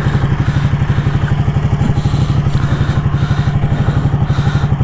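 Ducati Panigale 899's Superquadro L-twin engine idling at an even, pulsing beat, its pitch steady with no revving.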